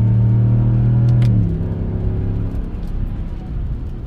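Stock exhaust of a Ram 1500 pickup heard from inside the cab with the windows up while driving: a steady low drone under throttle. A little over a second in, the drone drops in pitch and eases off into a quieter rumble.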